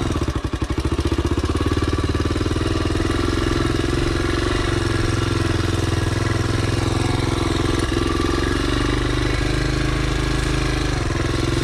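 Dirt bike engine running steadily at low revs. It chugs unevenly for about the first second, then settles into an even drone.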